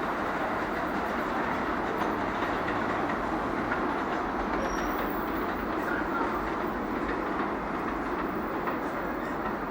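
New York City subway L train running along the track, a steady rumble of steel wheels on the rails.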